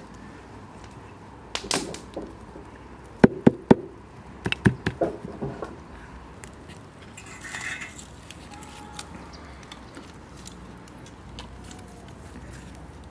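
Glass jars and green beans being handled: a series of sharp clinks and knocks from about one and a half to six seconds in, then a brief rustle of beans.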